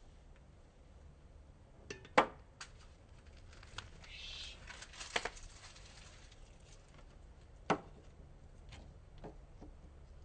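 Hand tools clinking and knocking against metal bolts and the wheel rim: a few sharp clinks, the loudest about two seconds in and others near five and near eight seconds, with a short rustle around four seconds.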